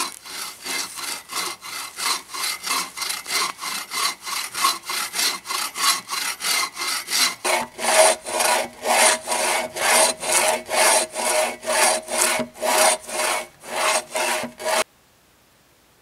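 Folding bow saw cutting through a log in steady back-and-forth strokes, about two a second. From about halfway through, the strokes take on a ringing pitch. The sawing stops abruptly about a second before the end.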